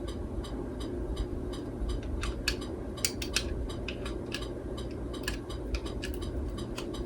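Light, irregular clicks and taps of small plastic and cardboard packaging being handled, over a low steady hum.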